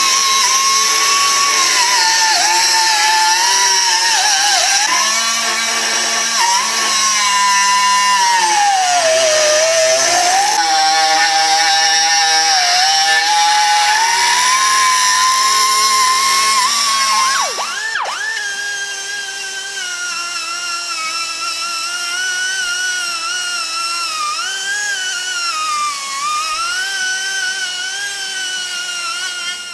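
A handheld power tool running continuously with a high motor whine. The pitch sags and recovers as the tool is pressed into the work. About 18 seconds in, the sound switches to a quieter, higher, wavering whine.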